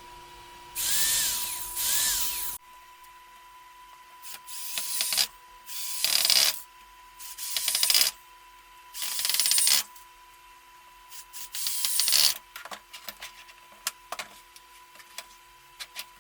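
Electric hand drill running in short bursts of about a second, five or so times, with a brief rising whine as it spins up at the first one. There are small clicks and knocks between the bursts.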